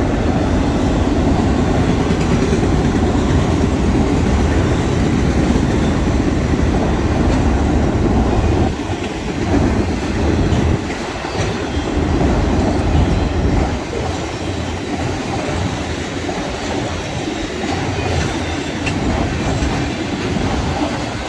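A long string of auto rack freight cars rolling past, their steel wheels giving a steady rumble and clatter on the rails.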